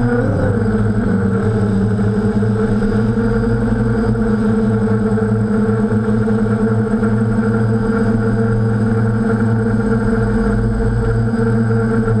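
Hexacopter's six electric motors and propellers (DJI props) humming steadily in flight, heard from the camera mounted on the craft. The pitch wavers briefly about half a second in, then holds level.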